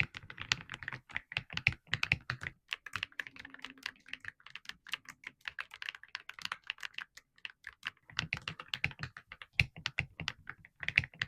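Typing test on an Aula F87 gasket-mounted mechanical keyboard with its stock hot-swap switches and MOG-profile keycaps: a fast, continuous run of key strokes. Deeper, fuller strokes come at the start and again from about two-thirds of the way in, with lighter, clickier strokes in between.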